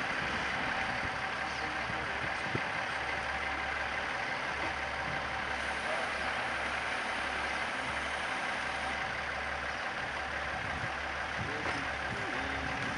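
Engines of two truck-mounted boom cranes running steadily while they hoist a small cabin off a flatbed trailer, with a low rumble and a steady whine on top.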